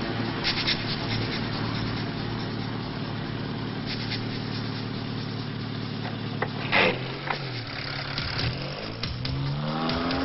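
Car engine running at a steady pitch, then a brief loud noise about seven seconds in, after which the engine revs up and down several times.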